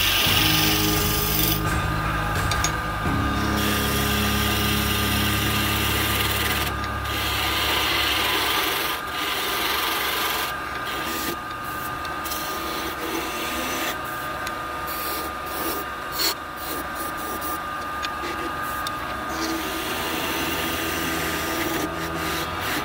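Gouge cutting a spinning cherry blank on a WEN wood lathe, peeling off shavings with a rough hissing cut. The cut stops and starts again and again as the tool is lifted off and put back. The lathe runs steadily underneath.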